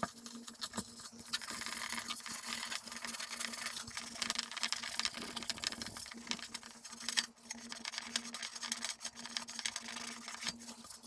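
Abrasive scrubbing pad rubbed quickly back and forth over an oxidized silver plate, a steady scratchy rasping, as citric acid is scrubbed in to lift the tarnish.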